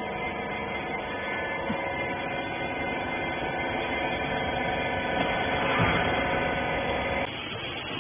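Hydraulic baler's electric motor and pump running with a steady, many-toned hum, which cuts off abruptly about seven seconds in.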